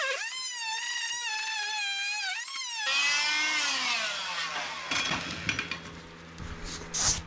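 4.5-inch angle grinder with a masonry blade whining as it cuts into a U-shaped track, its pitch wavering under load. About three seconds in it is released and winds down with a falling whine, followed by a few light knocks and scrapes.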